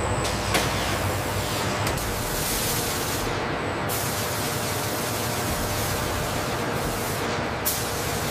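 Steady hiss of robotic spray nozzles spraying a coating onto a fighter jet airframe, over a low machine hum. A short click about half a second in and another near the end.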